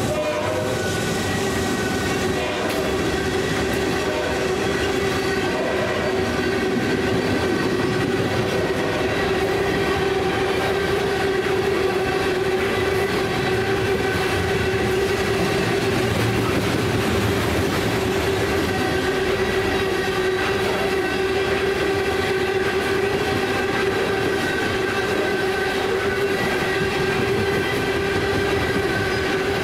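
Loaded coal train's hopper cars rolling steadily past at track side, a continuous rumble of wheels on rail with steady ringing tones over it.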